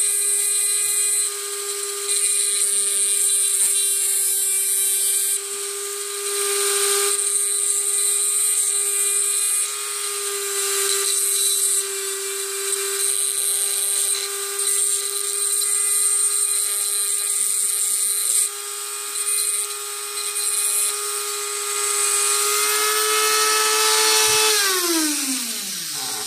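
Dremel rotary tool on a flexible-shaft attachment running at a steady high whine while its bit grinds the corners of a metal airsoft gearbox shell, with a hissing grinding noise that comes and goes as the bit touches the metal. About two seconds before the end the tool is switched off, and the whine falls in pitch as it spins down.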